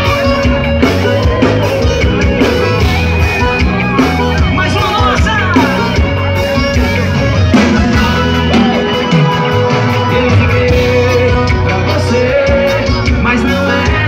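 Live band music played loud through the stage sound system: bass guitar, drums and keyboards keeping a steady beat, with a voice singing over it in places.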